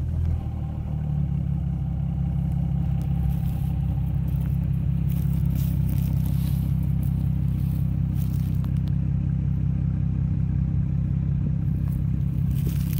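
Ford Mustang V6 engine idling steadily, settling down from its start-up revs in the first second.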